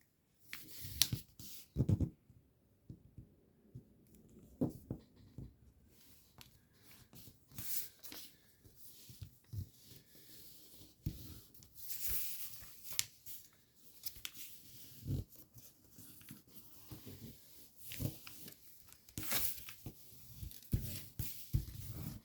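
A sheet of origami paper being handled and folded by hand: faint, intermittent crinkles, rustles and taps as folds are made and creases pressed.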